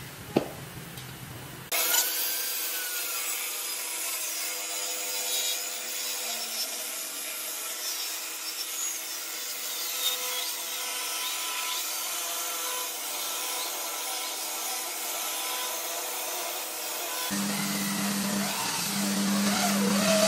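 Handheld circular saw running and cutting into a slab of Cẩm Lai rosewood, a steady whine with the hiss of the blade through the wood. It starts abruptly about two seconds in, and near the end turns to a lower, pulsing sound.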